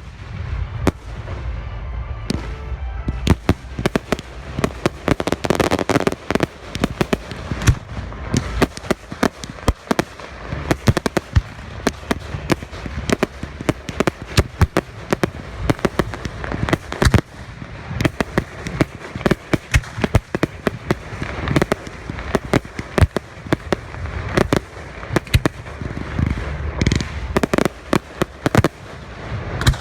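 Professional fireworks display firing hard: a dense, irregular run of sharp bangs, several a second, over a continuous low rumble and crackle.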